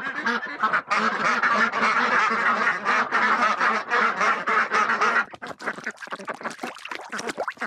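A flock of Indian runner ducks quacking loudly, many calls overlapping, for about five seconds. The quacking then stops abruptly, giving way to quieter scattered knocks.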